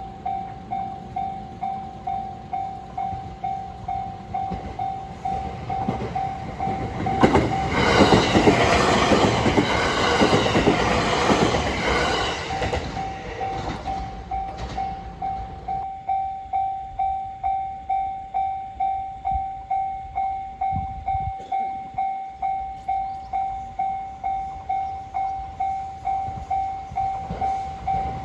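Japanese railway level-crossing warning bell ringing steadily, about two strokes a second. About seven seconds in, a train passes over the crossing for roughly six seconds, louder than the bell.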